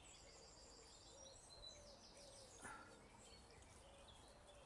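Faint garden birdsong over near silence: high trilled phrases, mostly in the first half, with a softer low note repeating at a steady pace.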